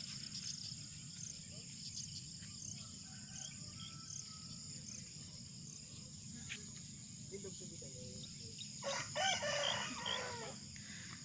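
A rooster crows once, about nine seconds in, lasting about a second and a half, over a steady high buzz of insects and a few faint bird chirps.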